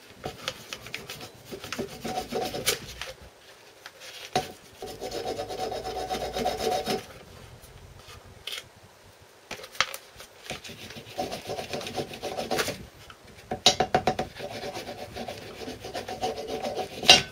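Ball peen hammer tapping gasket paper against the edge of a two-stroke engine cylinder, cutting out a paper gasket. The taps come in quick runs of a few seconds with short pauses between.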